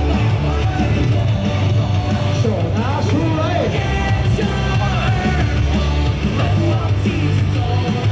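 Loud music with a heavy bass, with voices singing and yelling along.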